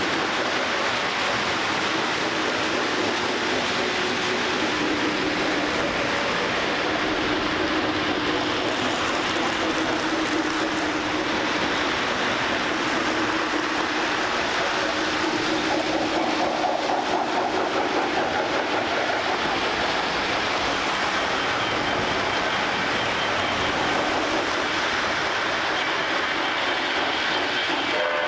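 Lionel O gauge model trains running on three-rail track: a steady running noise of metal wheels on the rails and electric motors humming, with no pause.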